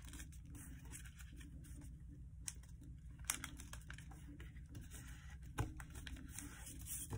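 A sheet of paper being folded and pressed into creases by hand: faint rustling with a few short, sharp crinkles.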